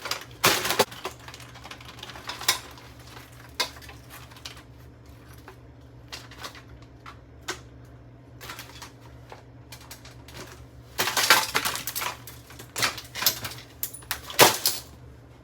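Plastic and metal parts of a box fan clicking and clattering as it is pulled apart by hand: scattered clacks, a quick flurry of them about eleven seconds in, and a sharp knock near the end.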